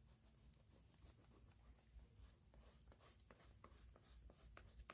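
Faint, irregular scratchy strokes of a colouring tool rubbed back and forth on paper, with a few small taps.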